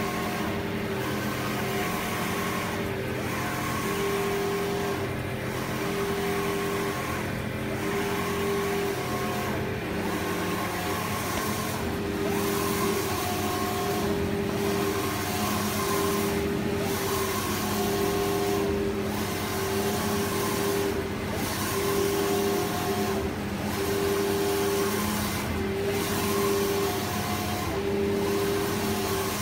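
MT digital belt textile printer running, its print-head carriage shuttling back and forth across the fabric. A steady motor whine breaks off and restarts about every two seconds as the carriage reverses, over a steady hiss.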